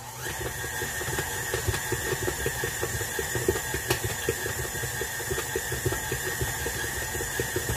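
KitchenAid Artisan stand mixer coming up to speed just after the start, then running with a steady motor whine and a fast, regular slapping as the dough hook works a stiff pizza dough loaded with extra flour.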